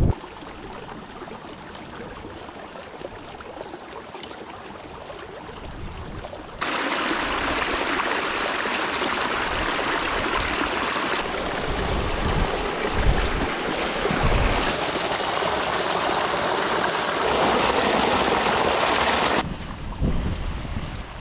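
Wind buffeting the microphone, then from about six seconds in a steady, loud rush of water from a moorland brook running full, with wind gusting on the microphone over it. The water sound cuts off abruptly near the end.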